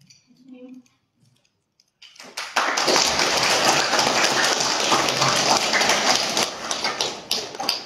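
Audience applauding: the clapping starts about two seconds in, builds quickly to a dense, loud patter, and fades away near the end.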